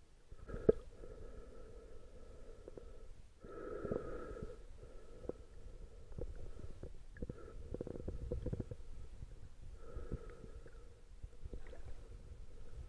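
Muffled underwater sound through an action camera's waterproof housing: a low gurgling rumble of moving water with a hollow tone that swells every few seconds, and scattered clicks and knocks. The loudest is a sharp knock about a second in.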